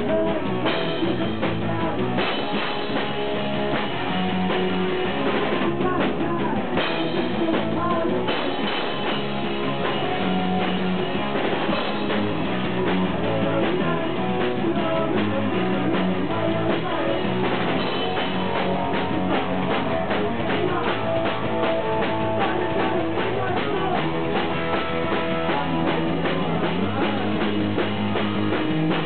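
Live rock band playing steadily: drum kit, electric guitar and a vocalist singing into a microphone.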